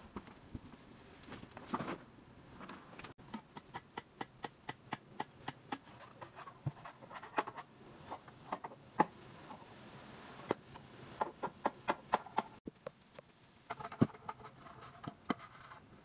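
Wood campfire crackling and popping in many small irregular snaps, with a few louder knocks among them.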